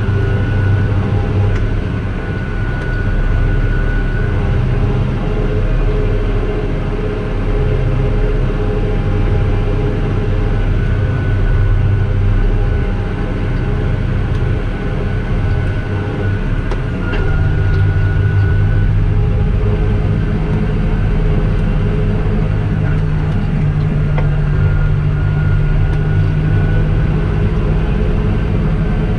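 A large farm machine's diesel engine running steadily, with a thin high whine above it. The engine note shifts slightly about two thirds of the way through.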